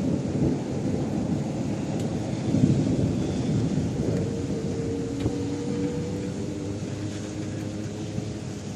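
Thunder rumbling over steady heavy rain. The rumble swells to its loudest about two and a half seconds in, then slowly dies away.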